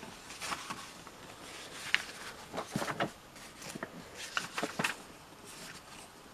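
Pages of a paper magazine being turned and handled by hand: a run of short, irregular rustles and flicks.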